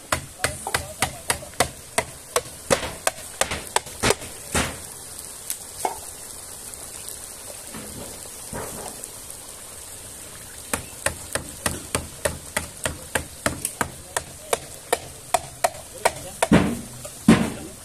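An opened tin can of tomato paste tapped repeatedly against the rim of a metal ladle to knock the paste out: quick sharp taps about three a second, in two bouts with a pause between, and a few heavier knocks near the end.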